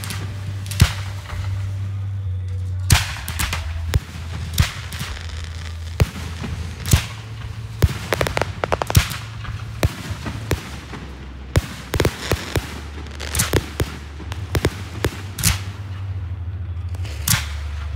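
Fireworks going off: a string of sharp bangs and crackles, coming in quicker clusters around the middle and later on, over a steady low hum.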